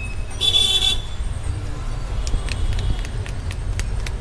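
Steady low street-traffic rumble with a short, high-pitched horn toot about half a second in, then light scattered clicks.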